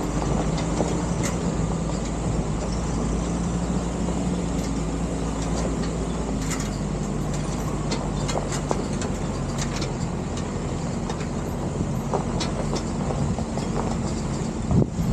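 Car driving on a rough gravel road: the engine running steadily and the tyres rolling over the loose surface, with scattered small clicks and knocks.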